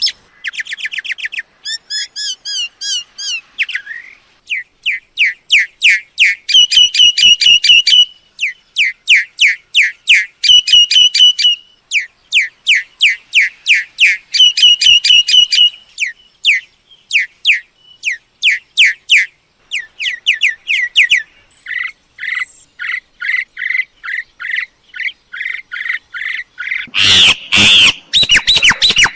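Myna calls: rapid runs of sharp, downward-slurred chirps, several a second, in bursts of a few seconds, giving way near the end to harsh squawks.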